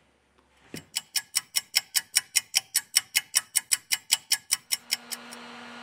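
Rapid, even ticking, about six sharp ticks a second, which stops shortly before a steady hum sets in near the end.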